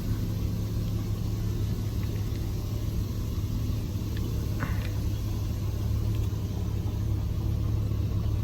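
The 225 cubic-inch slant-six of a 1986 Dodge D150 running steadily at low speed as the truck backs up under its own power, its rebuilt automatic transmission now engaging reverse.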